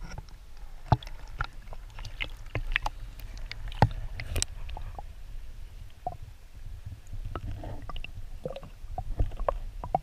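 Muffled water sloshing and gurgling around a camera held underwater, with a steady low rumble and scattered sharp clicks and pops throughout.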